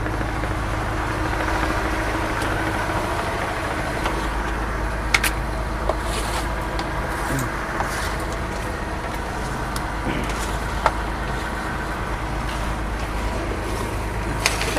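Fishing boat's engine running steadily, a low even drone, with a few sharp clicks or knocks over it.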